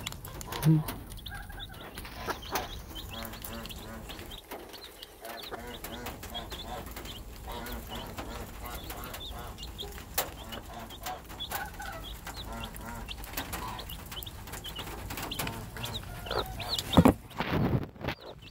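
A mother hen clucking softly while her three-day-old chicks peep, with a few loud bumps near the end.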